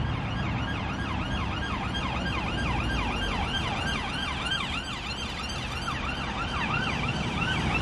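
An emergency vehicle's siren on a fast yelp, a rise-and-fall wail repeating about three times a second, over the rumble of road traffic.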